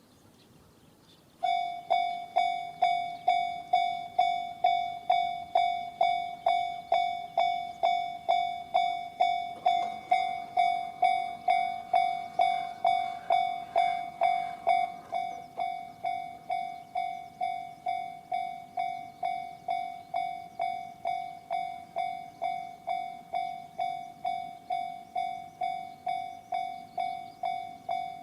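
Japanese level-crossing alarm, the JR standard electronic bell, starts suddenly about a second and a half in and rings at about two strikes a second, each strike dying away before the next. It drops in volume about halfway through.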